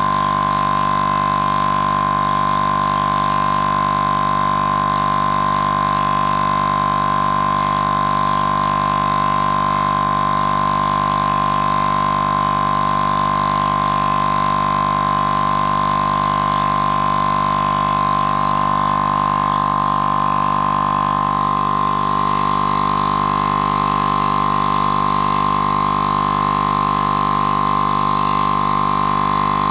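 Small portable air compressor running continuously, pumping air through its hose, with a steady whine.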